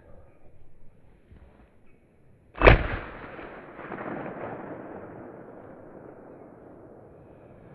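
A single rifle shot about two and a half seconds in, its report echoing and slowly fading over the next several seconds.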